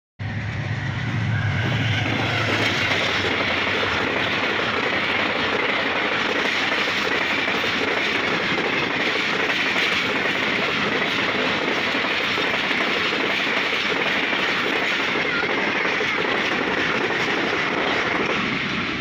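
Pakistan Railways passenger train running past a level crossing at close range: a steady, loud noise of wheels on rails, with a deeper rumble in the first couple of seconds, easing slightly near the end.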